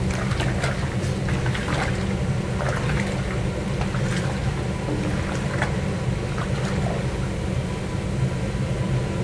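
A wooden paddle stirring a large pan of raw, wet chicken pieces: scattered squelches and scrapes against the stainless steel, over a steady low rumble.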